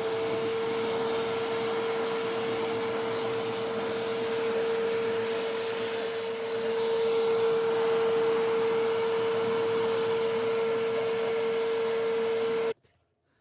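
Eureka AirSpeed NEU100 vacuum cleaner running steadily, a constant motor whine over rushing airflow. It stops abruptly near the end.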